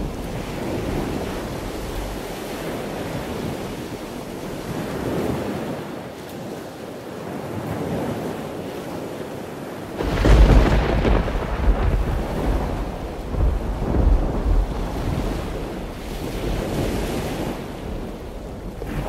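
Ocean waves and wind, a steady wash that turns suddenly louder and rougher about ten seconds in, with a deep rumble and gusting swells like a storm at sea.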